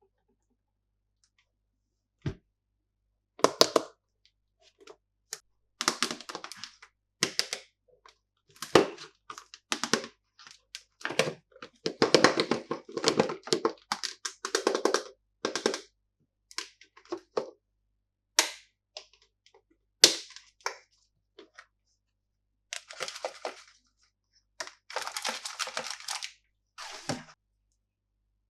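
Plastic candy packaging being handled and opened by hand: irregular crinkles, sharp snaps and clicks, some in quick runs, with silent pauses between them.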